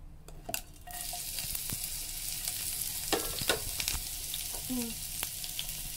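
Sliced onions and spring onions dropped into hot oil in a non-stick frying pan, sizzling steadily from about a second in, with a few light knocks in the pan.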